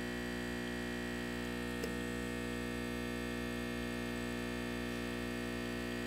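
Espresso machine pump humming steadily while a shot runs slowly through the portafilter, a puck the operator thinks was ground too fine and packed too hard. A faint tick about two seconds in.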